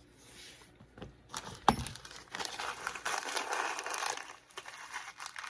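Crinkling and rustling of small packaging being handled, with one sharp click about one and a half seconds in. The rustling is densest in the middle and then trails off.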